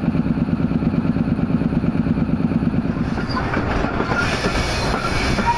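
Passenger train running, heard from an open coach door just behind the diesel locomotive: a fast, rhythmic low throb from the locomotive and wheels on the rails. About three seconds in it gives way to a broader rushing noise of wheels and wind.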